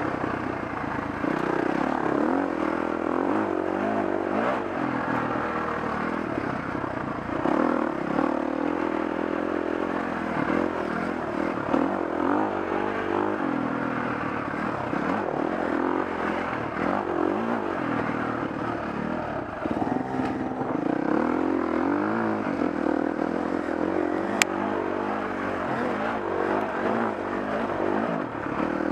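Dirt bike engine running on a trail ride, its pitch rising and falling over and over as the throttle opens and closes. A single sharp click about 24 seconds in.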